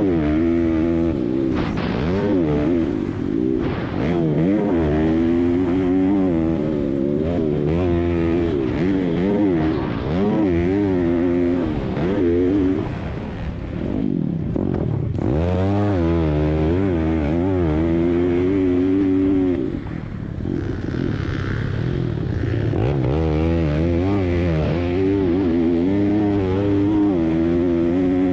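Racing pit bike engine revving hard and easing off again and again as the rider works through the track, its pitch climbing and dropping many times. The revs drop off briefly twice, about halfway through and again a little later.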